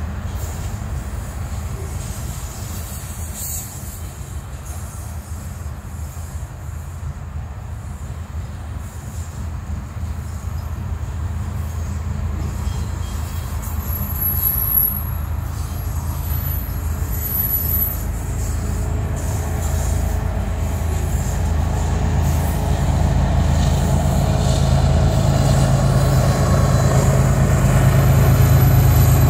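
Freight train tank cars rolling past with a steady rumble of wheels on rail, broken by brief high-pitched wheel squeals around the middle. The rumble grows louder near the end as the rear diesel locomotive approaches.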